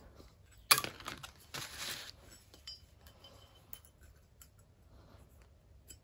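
Metal parts clinking and rattling as a cast wheel hub is handled and fitted onto a car suspension strut's stub axle: a sharp clink a little under a second in, a couple of seconds of rattling and scraping, then a few light clicks.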